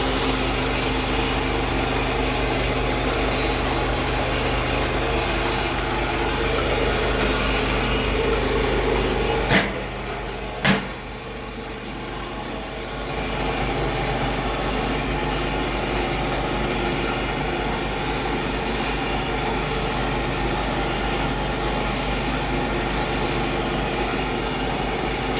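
Liquid sachet packing machine running: a steady motor hum with a regular clicking from its mechanism. Two sharp knocks come about ten seconds in, after which the machine noise dips briefly and settles back to a steady run.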